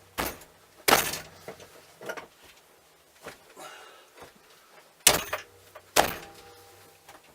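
Sharp knocks and jolts of a steering wheel being yanked and knocked loose from the steering column's splined shaft, its retaining nut left loosely on. Four loud knocks come in two pairs about four seconds apart, with a weaker one between and light rattling.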